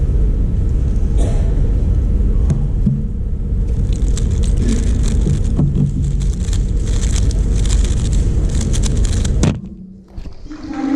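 Loud, steady low rumble of background noise with a rapid, irregular run of sharp clicks for about five seconds. Then the sound cuts off abruptly.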